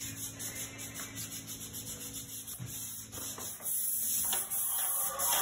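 Quick, repeated rubbing strokes made by hand against a surface. They get louder and hissier about two-thirds of the way in.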